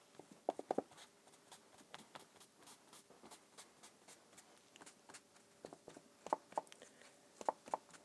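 Soft, light taps of a crumpled paper towel dabbed on wet watercolour paper, blotting up water lines in the paint. They come in short quick groups: three or four about half a second in, and more around six seconds and near the end.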